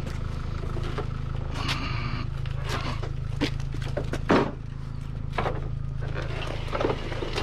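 A long awning being dragged and shifted across concrete, its casing scraping and knocking several times. The sharpest knock comes about four seconds in, over a steady low hum.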